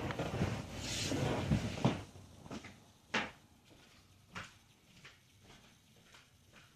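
A car passing on the street, its noise swelling and then falling away within the first two seconds. After it come a few scattered sharp clicks and knocks, the loudest about three seconds in.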